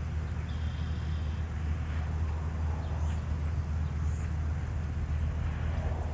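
A steady low rumble of fire apparatus diesel engines running at the fireground, heard from a distance.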